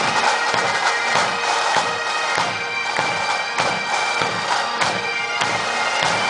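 Massed pipe bands playing: many Great Highland bagpipes sounding a tune over their steady drones, with bass and side drums beating time.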